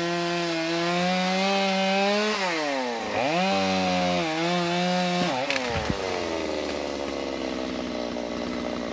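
Chainsaw running at full throttle, cutting through a large oak branch. Its engine note sags and picks back up about two and a half seconds in. About five seconds in, a few sharp cracks come as the branch breaks away, and the saw then eases off, its note slowly falling.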